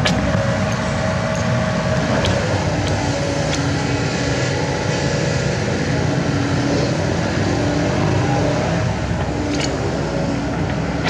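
Kobelco SK75 mini excavator's diesel engine running steadily at working revs, with a held whine that drops to a lower pitch about three seconds in and a few sharp knocks.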